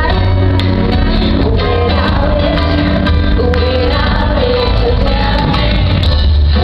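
A woman singing a pop song live into a microphone over her band, with heavy bass, heard loud and steady through the arena's sound system.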